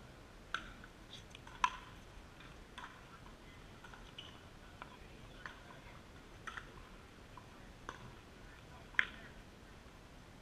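Pickleball paddles striking a hard plastic ball during a rally: a string of sharp, hollow pops about once a second, the loudest near the start and another near the end.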